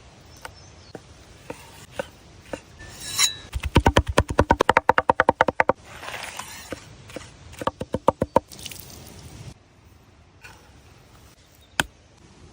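Food being prepared by hand: scattered single taps, then a fast, even run of knocks about ten a second for roughly two seconds, and a shorter run a couple of seconds later, like a knife chopping on a board.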